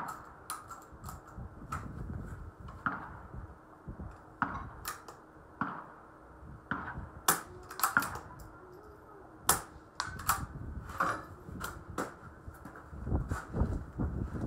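A string of sharp clicks and knocks at irregular intervals, a few louder ones around the middle, with a low rumble coming in near the end.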